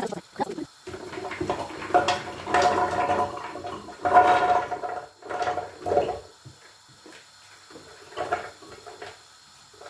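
Water rushing and splashing, as when water is run or poured into a container, for about five seconds, stopping about six seconds in, followed by a few light kitchen handling sounds.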